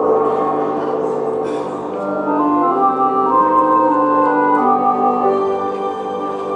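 Organ-like keyboard music starting suddenly: sustained chords with notes changing over them and no beat.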